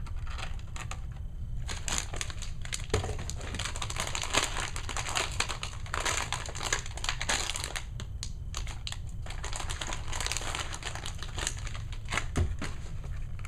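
Clear plastic figure packaging being handled, crinkling and crackling with scattered sharp clicks throughout.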